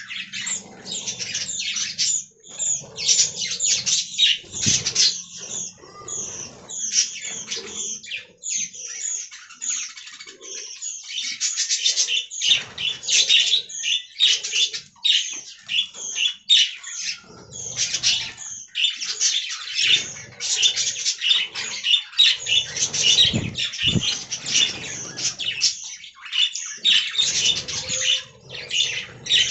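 Budgerigars chattering and warbling: a continuous stream of rapid, scratchy chirps and squawks.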